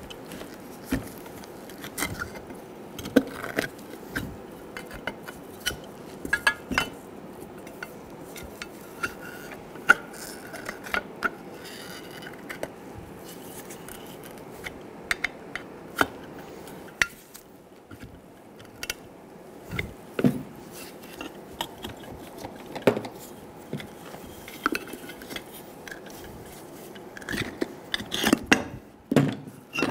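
Flat-blade screwdriver scraping and clicking against a metal engine mount bracket as the old rubber bushing is pried out, with irregular sharp metallic clicks and knocks and a cluster of louder knocks near the end.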